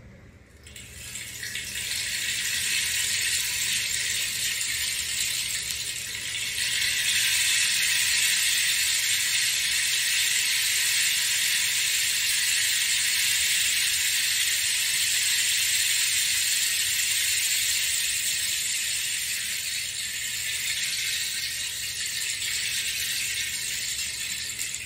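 Painted rainstick held upright and tipped, its filling trickling down through the tube in a continuous rain-like rattling hiss. It grows fuller about six seconds in and eases a little near the end.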